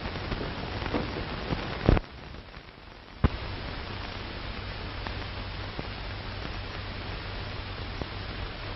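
Steady hiss and low hum from an old black-and-white film's worn soundtrack, with no dialogue. Two loud clicks come about two seconds in and again just over a second later, and the hiss drops out briefly between them.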